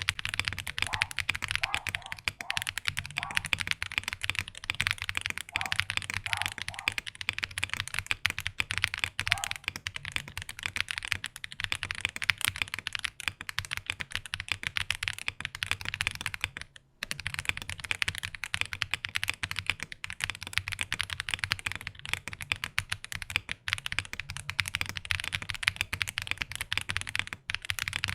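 Fast typing on a Meletrix Zoom98 mechanical keyboard: a dense, continuous run of keystrokes, with one short pause a little past the middle.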